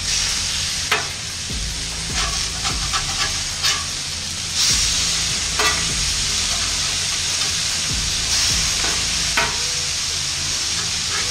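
Beef smash burger patties sizzling on the hot steel plate of a Char-Griller Flat Iron gas griddle, with a metal spatula scraping and clicking against the plate as the patties are turned over, several times. The sizzle grows louder about four and a half seconds in.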